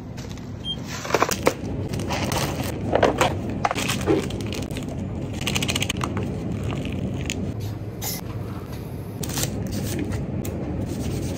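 Crinkling, crackling and tearing of a Chapaghetti instant cup noodle's packaging as its paper-foil lid is peeled back, in a string of short sharp clicks and rustles, over a steady low hum.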